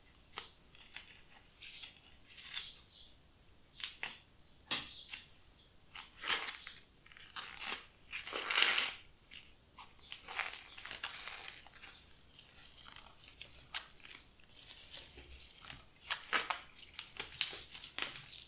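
Dried flower and grass stems rustling and crackling as they are handled and gathered into a bouquet, in irregular crinkles and snaps.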